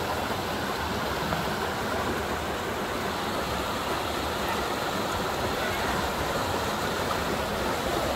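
Oak Creek's water rushing steadily over rock, a continuous even hiss of flowing water.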